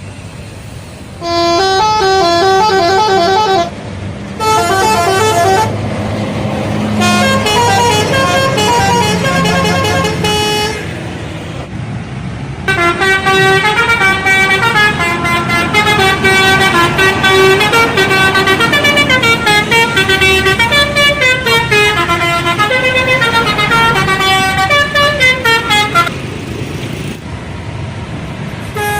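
Indonesian bus telolet horns, multi-tone musical air horns playing quick stepping melodies. They sound in three short bursts in the first ten seconds, then in one long run of about thirteen seconds, over the low running of a bus engine.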